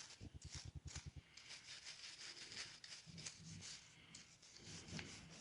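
An old toothbrush faintly scrubbing an HO scale model steam locomotive clean: a quick run of short back-and-forth strokes over about the first second, then softer, irregular scrubbing.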